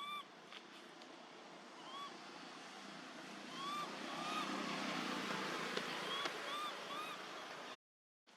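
Baby monkey crying with short, high, arched coo calls, about eight of them, over a rushing background noise that grows louder midway; the sound drops out abruptly near the end.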